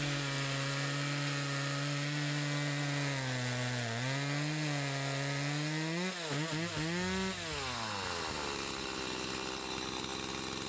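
Stihl MS180C two-stroke chainsaw at full throttle cutting through a log, running on its cleaned original carburetor. The engine note holds steady, wavers a little in the cut, then falls away toward idle about three-quarters of the way through as the throttle is let off.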